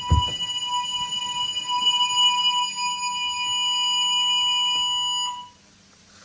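EMS Smartcell wireless fire alarm sounding its continuous tone (tone 1) during a weekly test: a steady, unbroken electronic tone that cuts off suddenly about five seconds in. A low thump right at the start.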